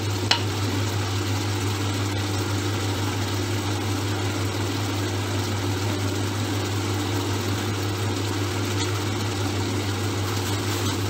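Beef mince in taco sauce simmering in a frying pan with a steady hiss, over a constant low hum. A single sharp click comes about a third of a second in.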